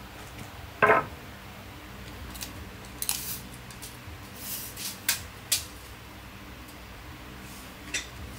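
A single sharp knock with a short ring about a second in, then several brief, high scraping clicks spread over the next seven seconds.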